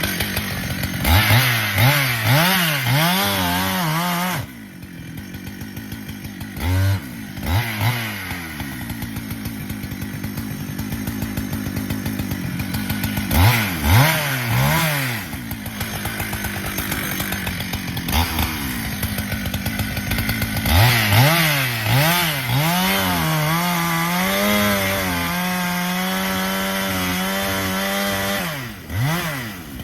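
Husqvarna chainsaw revving up and down repeatedly, dropping back to a rhythmic idle between revs, then held at high revs for several seconds near the end.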